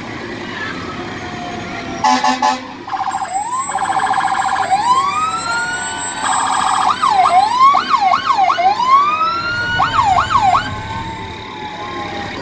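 Fire truck's electronic siren, sounded in short runs as it passes: rapid pulsing tones, a rising wail, then fast up-and-down yelps. It starts about two seconds in and cuts off shortly before the end.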